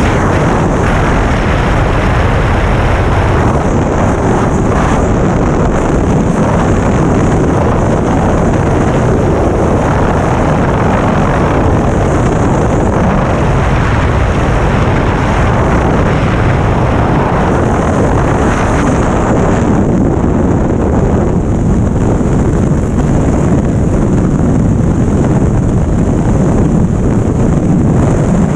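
Freefall wind rushing at high speed over an arm-held action camera's microphone during a tandem skydive: a loud, steady buffeting rush of air.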